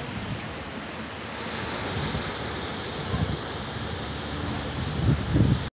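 Ocean surf breaking and washing over a rocky, boulder-strewn shore, with wind buffeting the microphone in gusts, strongest near the end.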